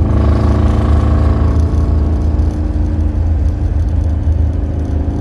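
1968 Camaro's carbureted V8 with chambered exhaust running steadily as the car drives, a little louder over the first couple of seconds and then easing.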